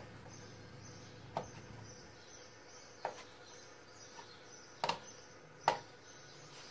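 A knife cutting duck foie gras on a plastic cutting board, with a few light knocks of the blade against the board, the loudest near the end.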